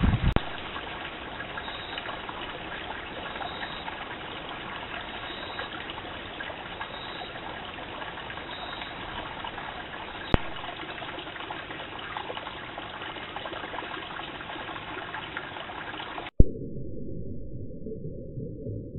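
Small stream trickling over rocks, a steady rushing hiss, picked up by a trail camera's microphone. A sharp click about ten seconds in and a louder one about sixteen seconds in, after which the water sounds duller and muffled.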